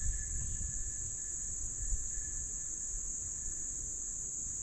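Steady, high-pitched drone of an insect chorus, under a low rumble with a couple of soft thumps about two seconds apart.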